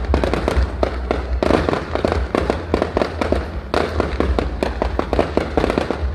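Fireworks going off in a dense, rapid stream of sharp pops and crackles, with a low rumble underneath.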